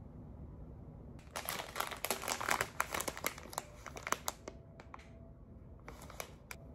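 Crinkling: a dense run of crackles for about three seconds, then a few scattered clicks near the end.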